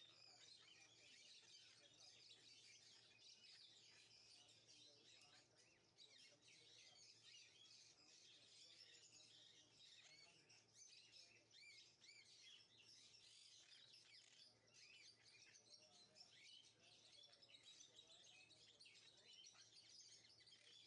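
Faint, continuous chirping and twittering of many small birds, over a low steady hum.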